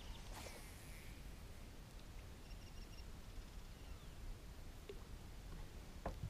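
Quiet open-air background: a low steady rumble, a few faint clicks, and brief faint high chirping about two and a half seconds in.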